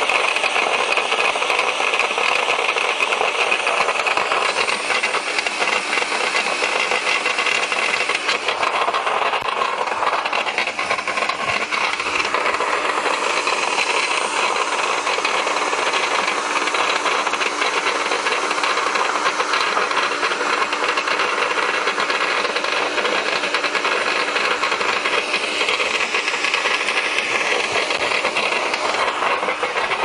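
Garden shredder running under load, grinding through a short, thick piece of plum tree branch with a steady, dense noise and fine crackle throughout.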